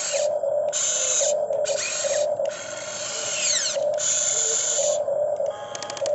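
Radio-controlled excavator's small electric motors whirring in short runs as the model works, starting and stopping every second or so.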